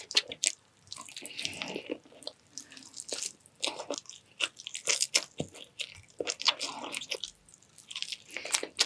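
Close-miked eating sounds: wet chewing and crunchy bites coming irregularly, several a second.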